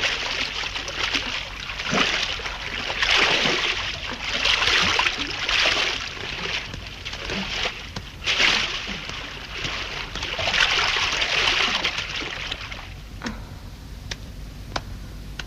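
Swimmers splashing and sloshing through pool water in repeated surges. The splashing dies down about three-quarters of the way in, leaving a few sharp ticks.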